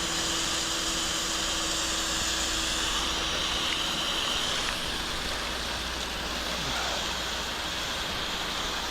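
Pressure washer running, its wand shooting a high-pressure jet up the side of a house: a steady hiss of spraying water over the low hum of the machine's engine.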